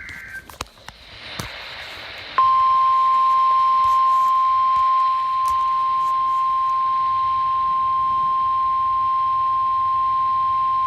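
Weather radio warning alarm tone: a single steady high beep that starts about two and a half seconds in and holds unbroken, the alert tone that announces a new warning. Before it, a short high warbling data burst ends and a few clicks sound.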